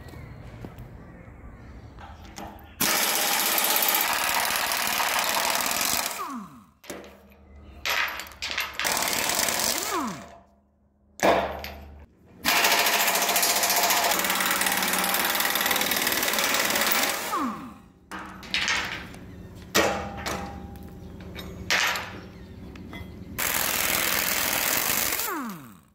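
Pneumatic impact wrench hammering on the rusted nuts of a blade's cutting-edge bolts, in several long bursts of a few seconds each with short pauses between. Its air motor falls in pitch as it spins down after some of the bursts.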